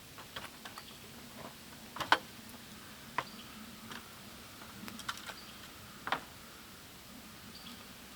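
Scattered light clicks and taps at an irregular pace, the sharpest about two seconds in and again about six seconds in, over a low steady background.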